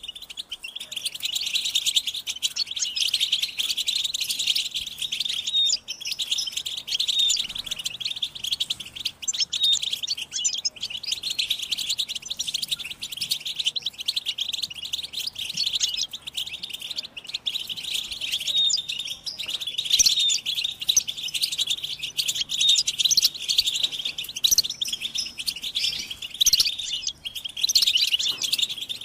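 A flock of European goldfinches twittering and chattering without a break: many quick, high, overlapping chirps and trills.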